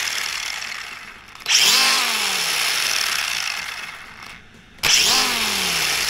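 HNR Panther 1/10 RC car's 3S brushless motor and drivetrain revved in short throttle blips, the wheels spinning free in the air. Each blip starts with a sudden high whine that falls in pitch as the motor coasts down. Two fresh blips come, one about a second and a half in and another near five seconds in.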